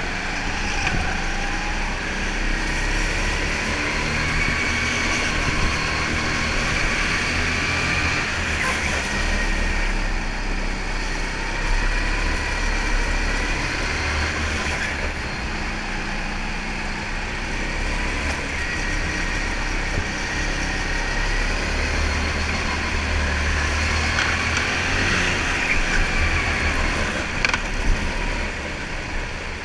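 Rental go-kart running flat out around the track, its motor note rising and falling with speed through the corners. There are a couple of sharp knocks near the end.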